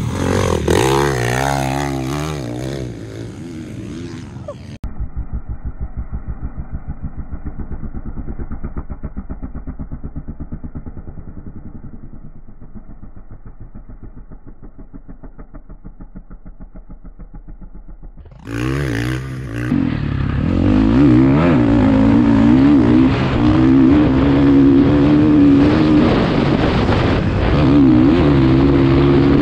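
Dirt bike engine revving as it rides on sand. For a long stretch in the middle the engine sound turns muffled and lower, with a slow regular pulsing. Then, near two-thirds of the way through, it comes back clear and loud, held on the throttle with the pitch wavering up and down.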